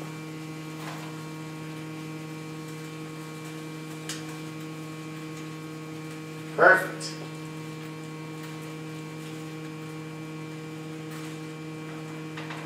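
Steady electrical hum made of a few even tones, with one faint tick about four seconds in.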